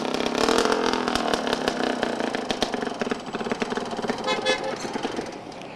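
A motorcycle engine running, a rapid even beat of pulses that fades away over the last couple of seconds.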